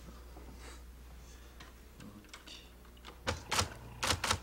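Electric typewriter keys clacking: after a quiet stretch, a few quick keystrokes start about three seconds in, over a low steady hum.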